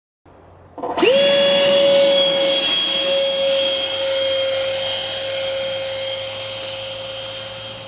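Electric ducted fan (impeller) of a foam RC plane spooling up sharply about a second in to a steady high whine over a rush of air, then slowly getting quieter.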